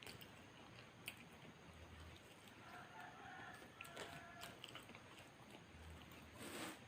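A rooster crowing faintly in the background about three seconds in, one drawn-out call, over soft chewing and mouth sounds of someone eating. A short burst of noise near the end.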